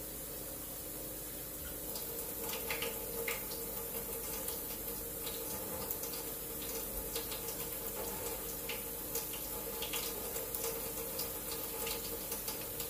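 Kitchen tap running steadily as water is measured out, with light clicks and clinks from about two seconds in.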